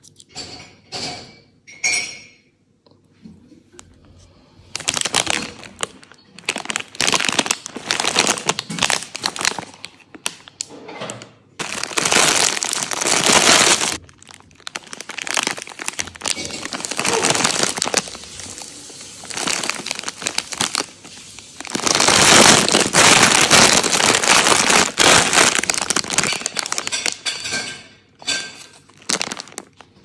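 Plastic bag of wrapped chocolate pralines crinkling as it is handled and turned over, in long spells with short pauses.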